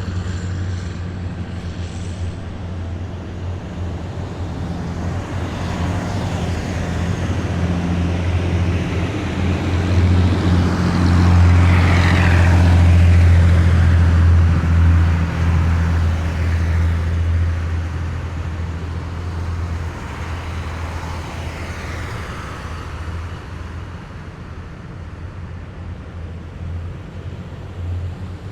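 Heavy military vehicles driving past on a street, a deep steady engine drone. It grows louder, is loudest about twelve to fifteen seconds in as a vehicle passes, then fades away.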